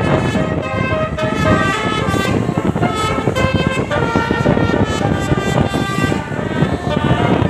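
An Indonesian bus's 'telolet basuri' multi-note air horn playing a melody of short held notes that step up and down in pitch, over a low rumble.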